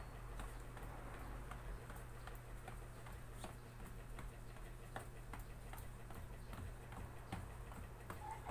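Faint light footfalls on a hard floor from jogging in place, about two steps a second, over a low steady hum.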